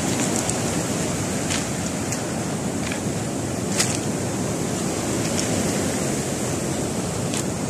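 Rough sea surf breaking and washing up a pebble beach: a steady rushing noise with a few faint, brief clicks.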